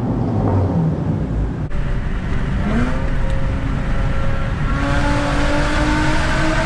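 Honda J35 V6 engine pulling under load: its pitch rises briefly, drops, then from about halfway climbs slowly and steadily.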